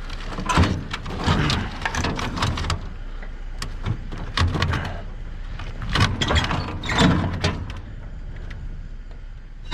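Irregular knocks, clunks and clatter of metal and plastic basketball hoops being handled and stacked as scrap onto a trailer, with a steady low hum underneath.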